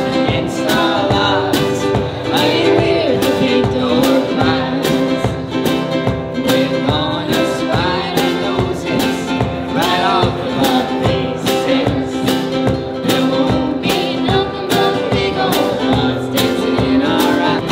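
Live acoustic band playing: strummed acoustic guitar with a singer over a steady beat of about two hits a second.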